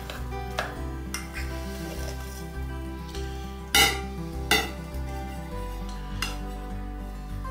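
A rice cooker's metal inner pot and a plastic rice paddle clattering as cooked rice is scraped out onto a plate: scraping with several sharp knocks, the loudest a little under four seconds in. Soft background music plays underneath.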